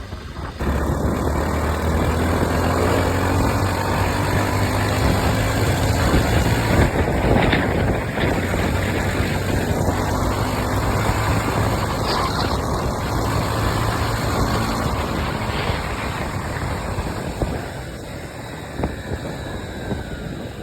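Motorcycle engine running at a steady road speed, a low hum that shifts in pitch a few times, under loud wind and road noise while riding in traffic.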